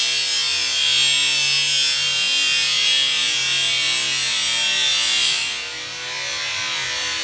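Electric power tool working on a steel rail joint: a loud, harsh, steady hiss that stops about five and a half seconds in.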